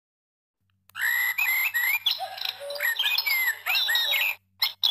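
Recorded birdsong, a run of quick chirps and tweets, played through the small speaker of a children's sound board book from its bird button. It starts about a second in, cuts off abruptly after about three and a half seconds, then restarts in short snatches near the end, as if the button were pressed again.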